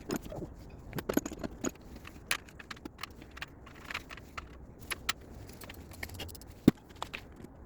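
Scattered light clicks and clinks of metal hand tools and engine parts being handled, with one sharp knock near the end.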